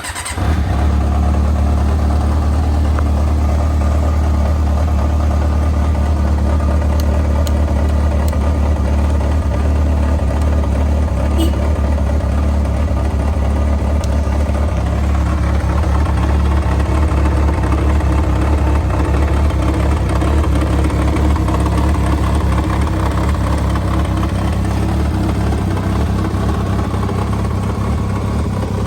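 Yamaha XJR400R's four-cylinder engine, breathing through a K2TEC aftermarket silencer, fires up at the very start and runs at a steady, deep idle.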